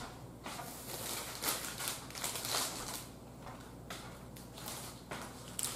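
Faint rustling and shuffling of someone moving about out of shot, turning into the crinkle of a plastic instant-noodle packet being handled near the end.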